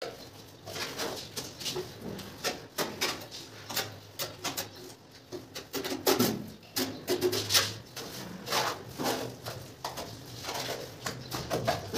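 Steel trowel spreading and scraping wet cement mortar across the back of a ceramic tile, in many short, irregular strokes with light taps.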